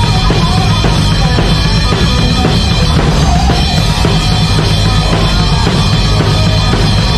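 Heavy metal band playing live, heard from the drum kit: bass drum, snare and crashing cymbals loud up front over electric guitars and bass, in a steady driving rhythm.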